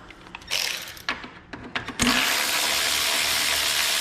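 A few light clicks and rattles of hand work, then about two seconds in a loud, steady hiss starts suddenly and keeps going.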